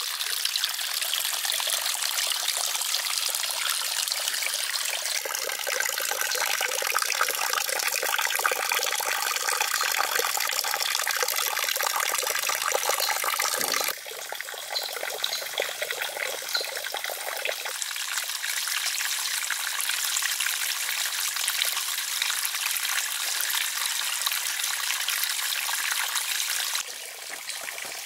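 Water trickling and splashing steadily down a small artificial rock waterfall into a pond. The sound changes abruptly twice, about halfway through and near the end, where it turns a little quieter.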